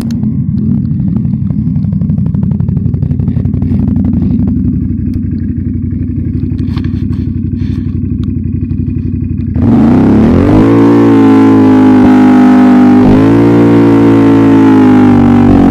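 ATV engine running low and steady, then about two-thirds of the way through opening up sharply into a loud rev whose pitch climbs and holds high, with one brief dip and rise near the end.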